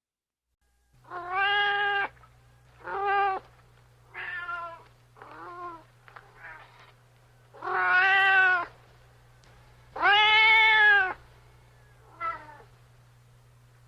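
Domestic cat meowing about eight times in a row, each meow under a second long. The longest and loudest come just past halfway and about three-quarters through.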